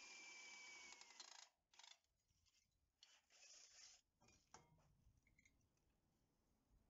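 Faint cordless drill running as it bores into a small steel plate. Its whine sags slightly in pitch and stops about a second and a half in. After that come short, faint scraping and rubbing sounds of metal being worked on the bench.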